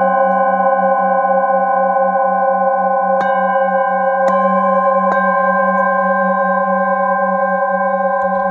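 Metal singing bowls ringing with long, overlapping tones, the lowest one wavering in a steady pulse. Light mallet strikes about three, four and five seconds in add fresh ringing tones.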